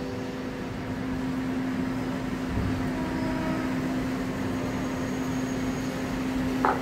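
KRL Commuter Line electric train pulling out along the platform, a steady hum with running noise from its wheels on the rails. A short sharp click sounds near the end.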